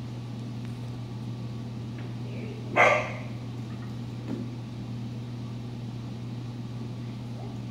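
A single short bark from a Giant Schnauzer puppy about three seconds in, over a steady low hum.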